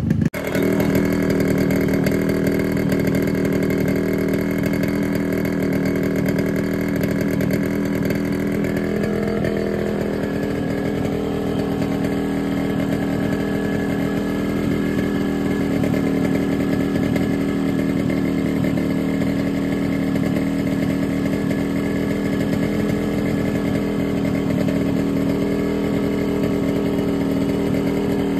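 Yamaha RX100's two-stroke single-cylinder engine running steadily at idle after a rebuild with a new piston and reed valve, firing on a borrowed old-model Hero Splendor ignition coil. There is no knock or piston noise from the engine.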